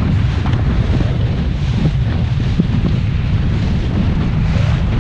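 Heavy wind buffeting the microphone on a boat under way: a loud, steady, low rumbling noise with no voices.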